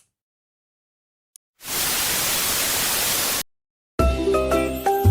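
A burst of even static-like hiss, about two seconds long, that starts and cuts off abruptly. About four seconds in, jingly music with a bass line begins.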